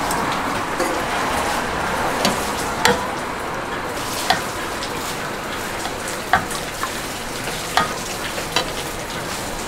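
Food frying with a steady hiss, while a metal utensil stirs in the pan, clinking sharply about seven times.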